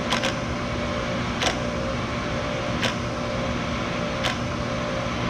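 Pro-Cut on-car brake lathe running with the hub and brake rotor turning, a steady motor hum with a sharp tick about every one and a half seconds. It is in its adjusting mode, automatically adjusting itself to the tolerances of the rotor before the cut.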